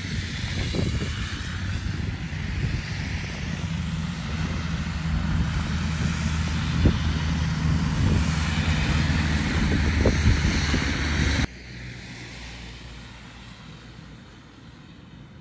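Wind rumbling on the microphone over road traffic driving through snow, as a loud, dense noise. About eleven and a half seconds in it cuts off suddenly, leaving a much quieter traffic background.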